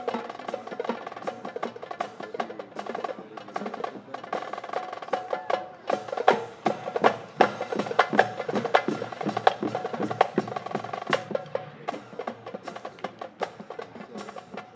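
High school marching band playing: drumline snare and bass drum strikes and rolls over held notes from the wind instruments, with the drum hits coming thickest and loudest in the middle.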